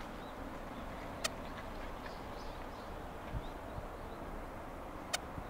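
Steady outdoor background hiss with small birds chirping faintly now and then, and two sharp clicks, one about a second in and one near the end.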